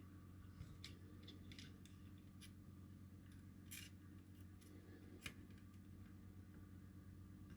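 Faint, scattered small clicks and ticks of fingers and small hand tools working the metal legs of a tactile switch into a circuit board, over a steady low hum.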